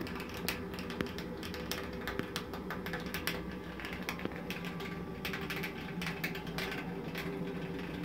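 Gravity-fed wood pellet boiler running: irregular crackling and ticking over a steady hum from its small muffin fan forcing the exhaust draft. The crackling is the water boiling in the boiler.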